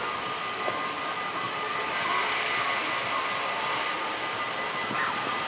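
Level crossing warning bells ringing steadily as the barriers rise, over a steady hiss of road traffic.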